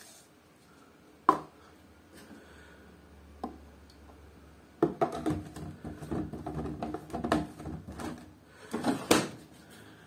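Plastic knocks and rattles of handling at a washing machine's detergent drawer while washing powder is tipped in, busiest from about five seconds in. Near the end the plastic drawer of a Beko front-loading washing machine slides shut with a double clack, the loudest sound.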